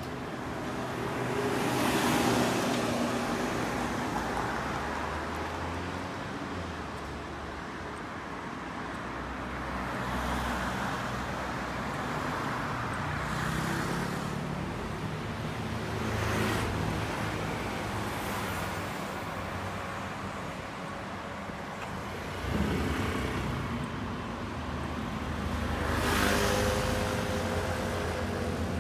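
City street traffic: cars and motor scooters passing on a wide road. Several vehicles swell past in turn over a steady traffic noise, with engines running close by.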